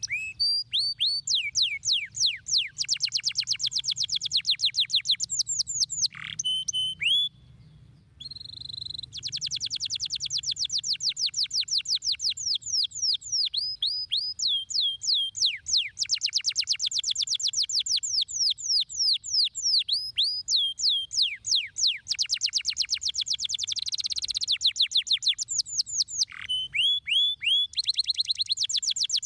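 Domestic canary singing: long fast trills of repeated downward-sweeping notes, changing from one trill to the next, with a brief pause about seven seconds in and a short held note just after it.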